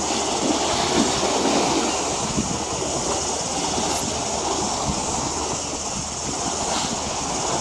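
Steady outdoor background noise: an even low rumble with a hiss above it and no distinct events.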